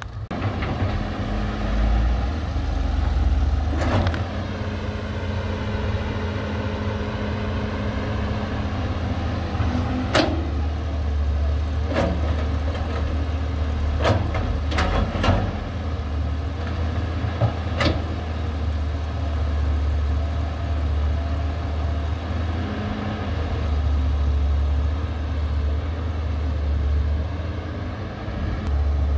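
Diesel engine of a Caterpillar 320 GC excavator running steadily under shifting load, with a faint whine that falls and rises again in the first several seconds. Several sharp knocks and clanks come between about 10 and 18 seconds in.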